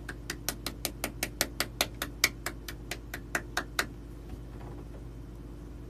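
A person clapping his hands, about twenty quick, even claps at roughly five a second, stopping a little before four seconds in.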